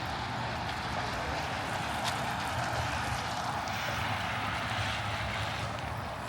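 Steady street traffic noise: an even hiss over a low rumble, with no single passing vehicle standing out.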